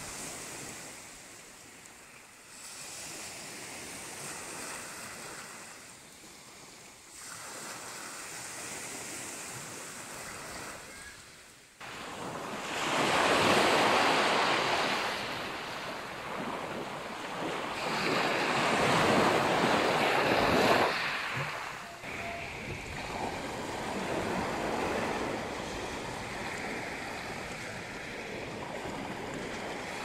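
Small sea waves washing and breaking on the shore. The surf grows louder about halfway through, with two strong surges.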